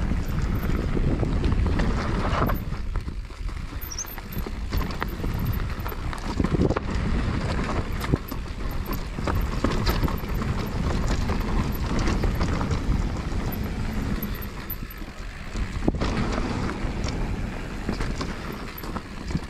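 Mountain bike riding down a rough dirt trail, its tyres rolling and the bike rattling and clattering over bumps, with wind buffeting the microphone.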